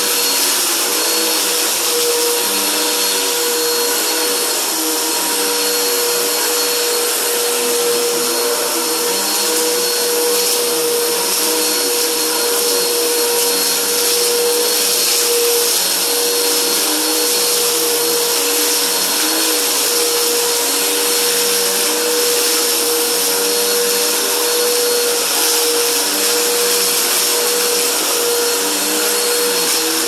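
Blue Helix upright vacuum cleaner running on carpet, sucking up scattered bits of debris as it is pushed back and forth. A steady motor whine, with a lower hum that wavers up and down with each stroke.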